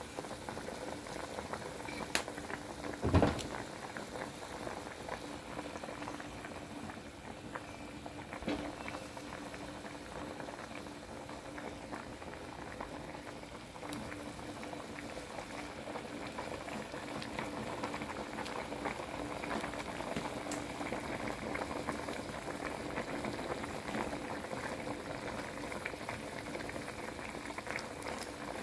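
Thai jungle curry bubbling at a rolling boil in a metal pot, stirred with a metal ladle. One sharp knock about three seconds in, and a couple of lighter clicks.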